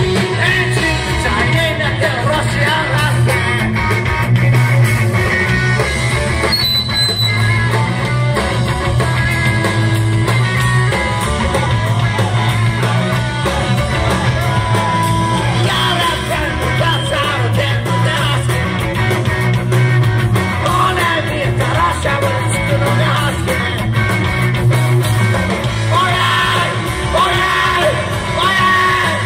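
Live rock band playing loud: drum kit, electric guitars and a singer.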